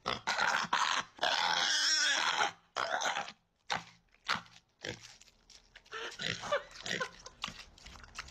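Pig eating watermelon: a run of wet, crunching bites and chewing, with one longer, louder noisy sound a little over a second in.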